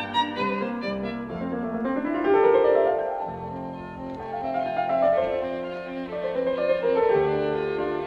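Instrumental background music: a slow melody of long held notes over a lower accompaniment, sliding up into a higher note about two seconds in.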